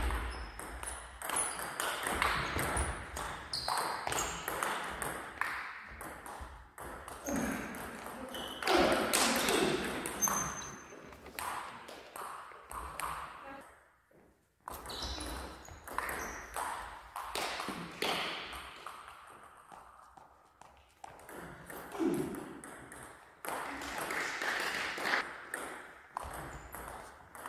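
Table tennis rallies: the ball clicking sharply off the bats and bouncing on the table in quick runs of hits, a few rallies in turn.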